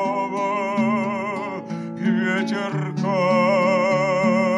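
A man singing a slow, lyrical song in long held notes with vibrato, to acoustic guitar picking low notes beneath. A short break in the voice comes about two seconds in before the next held note.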